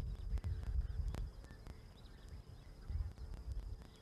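Outdoor bush ambience: low rumble of wind on the microphone, a steady high insect tone, faint bird chirps, and a few sharp clicks, the strongest about a second in.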